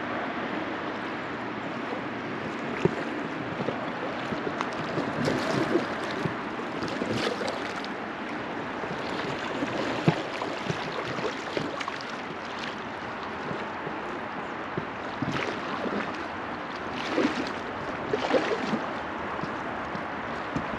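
River water rushing and lapping against a drifting raft, with scattered small splashes. There is a sharp knock early on and another about halfway through.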